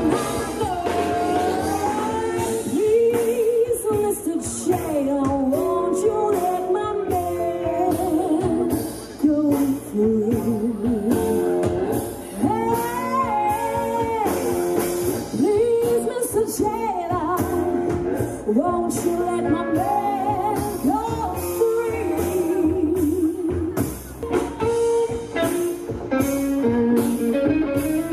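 Rock 'n' roll band playing live: a woman sings the lead, holding notes with vibrato, over electric guitar, upright bass and drums.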